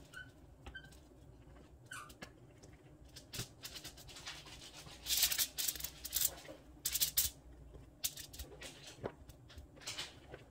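Aluminium foil crinkling and rustling in short bursts, with light taps, as slices of squash are set down on a foil-lined sheet.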